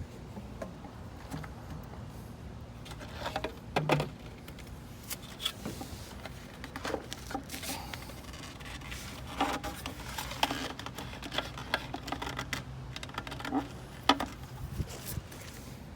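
Irregular light clicks and knocks of PVC pipe and fittings being handled and fitted together, with a sharper knock about 4 seconds in and another near the end, over a steady low hum.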